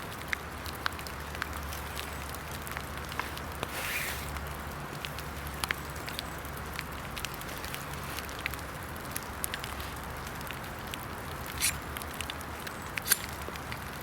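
Steady rain hiss with scattered drips tapping, and a few sharper clicks near the end.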